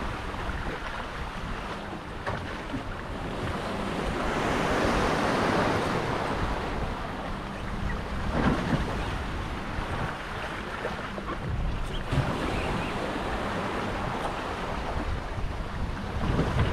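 Wind and sea aboard an IMOCA 60 racing yacht under way: wind buffeting the microphone over a steady wash of water rushing along the hull, swelling louder about four to six seconds in.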